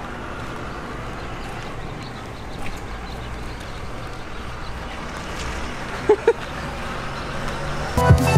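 Steady outdoor street background noise with no clear single source, broken by two short squeaks about six seconds in. Electronic music with a heavy beat cuts in near the end.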